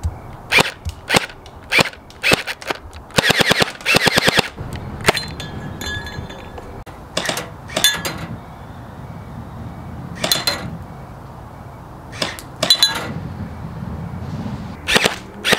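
Electric gel ball blaster firing: sharp single shots about every half second at first, a rapid automatic burst about three seconds in, then scattered single shots. Some shots are followed by a short high ring as gel balls strike small metal targets.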